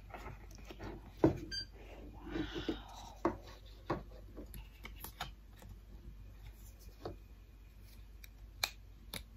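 A rigid cardboard gift box being opened and its contents handled. There is a rubbing slide of card on card about two seconds in, then scattered light clicks and taps as small boxed items are moved about.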